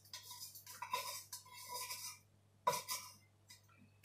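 Metal spoon scraping chili paste out of a glass jar: faint scraping for the first two seconds, then two short clinks nearly three seconds in.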